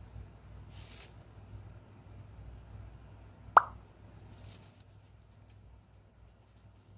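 A single short plop-like pop sound effect about three and a half seconds in, as an on-screen arrow pops up, over a faint steady hum.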